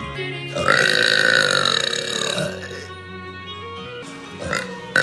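A long, loud burp starting about half a second in and lasting about two seconds, with another burp starting near the end, over background music.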